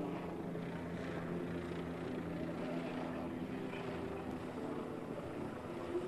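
Steady, even drone of a running engine, with a few held tones in the low-middle range and no breaks.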